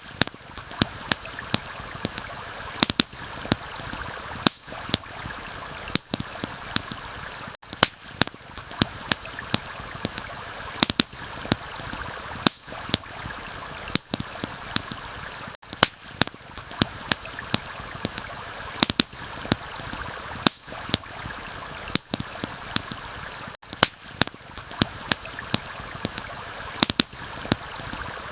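Steady rush of a flowing stream with a campfire crackling over it, sharp pops coming several times a second. The sound briefly drops out about every eight seconds.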